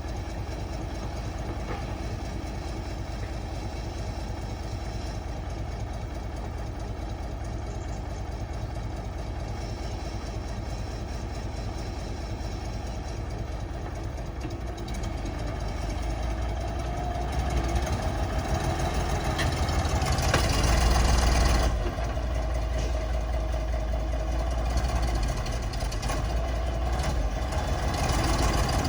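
Diesel engine of a heavy earthmoving machine running steadily, then working harder about halfway through. It grows louder for several seconds with a rushing noise over the top at its loudest, drops back sharply, and picks up again near the end.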